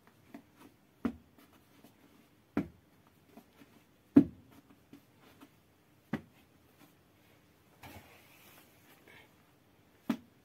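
Bread dough being torn from the batch and slapped down onto a floured cloth as loaves are shaped by hand: sharp slaps a second or two apart, the loudest about four seconds in, with small pats between them. There is a soft rustle of flour being brushed about eight seconds in.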